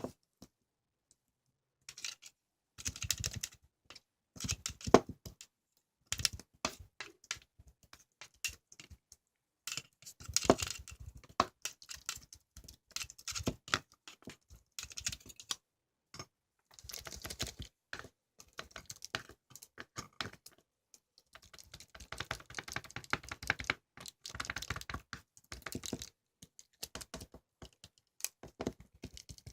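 Computer keyboard typing in quick bursts of rapid key clicks, with short pauses between the bursts.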